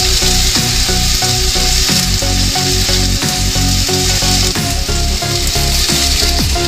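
Sliced onion and carrot sizzling steadily in hot oil in a kadai, stirred and scraped with a wooden spatula.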